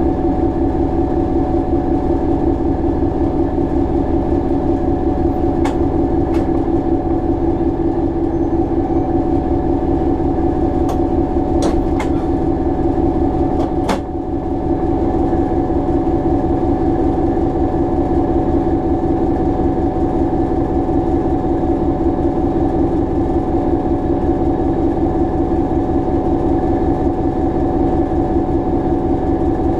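Hastings DEMU's English Electric 4SRKT diesel engine idling steadily while the unit stands still, heard from the cab. A few sharp clicks come near the middle.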